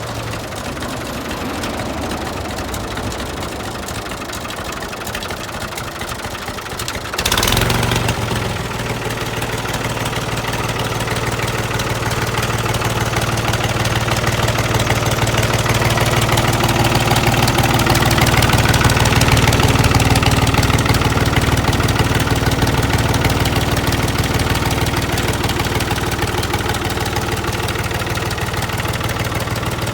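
Oliver 1365 tractor's diesel engine running, with a sudden loud burst about seven seconds in. After the burst it runs steadily, growing louder toward the middle and easing slightly near the end.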